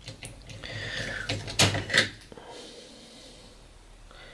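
Plastic ice cube relay being worked out of its DIN-rail socket: a short scraping slide, then two sharp plastic clicks about half a second apart, around a second and a half in.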